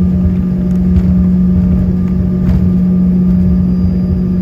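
Aircraft engines running at a steady, low power inside the passenger cabin, giving a constant hum with one strong, unchanging tone over a low rumble. This is before takeoff power is applied.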